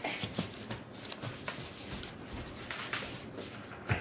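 Footsteps in slide sandals on a tile floor: a run of soft, irregular taps and shuffles, with a sharper tap near the end.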